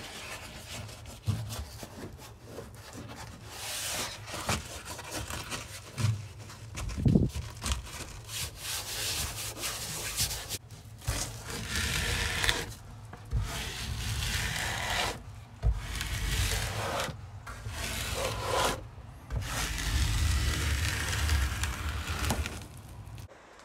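Flat edge of a small trowel rubbing and scraping over Kerdi waterproofing membrane in repeated strokes, with short pauses between them, squeezing the mortar out from underneath so the membrane lies flat.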